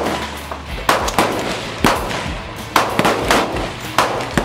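AR-15 rifle fired in semi-automatic, a string of about six single shots at uneven spacing, each with a short ringing tail.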